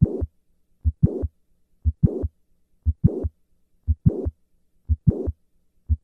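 Heart sounds of mitral valve prolapse, patient standing: about one beat a second, six in all. Each beat is a first heart sound, then a mid-systolic click, then a systolic murmur running up to the second heart sound. Standing brings the click and murmur earlier in systole than squatting does.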